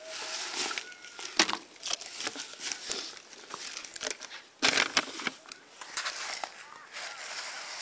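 Dry fallen leaves crunching and rustling under feet and knees, an irregular crackle of small sharp crunches. The loudest crunches come about a second and a half in and again near five seconds.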